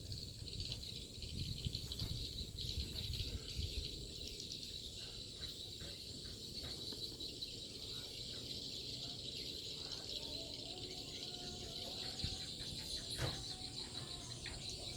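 A steady, high-pitched insect chorus, crickets or similar, with scattered faint short clicks and chirps.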